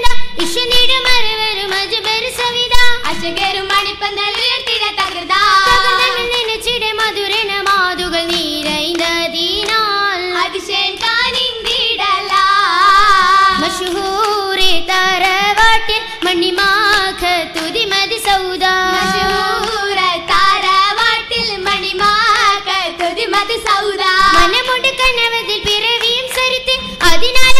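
Girls' voices singing a Mappila song for Oppana in one melodic line, with sharp hand-claps from the dancers throughout.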